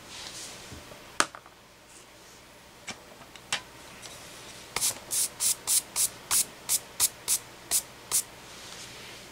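A pencil scraping in a quick, even series of about a dozen short strokes, roughly three a second, after a single sharp click about a second in.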